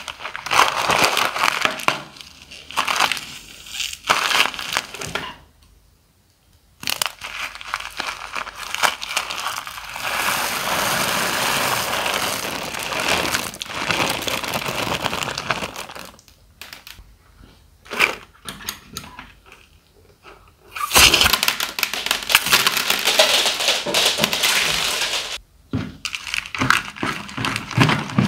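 A small zip-lock plastic bag of tiny beads crinkling in the hand, then a long steady stretch as the beads are poured out over the tray. Near the end a plastic scraper mixes the foamy slime ingredients, with crackly handling noises coming in stop-start bursts between the longer stretches.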